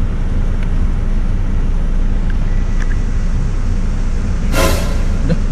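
Steady low rumble of a car heard from inside the cabin, with a short burst of hiss about four and a half seconds in.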